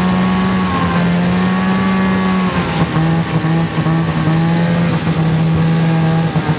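Snowmobile engine running steadily under way, its pitch stepping down slightly about two and a half seconds in as the throttle eases.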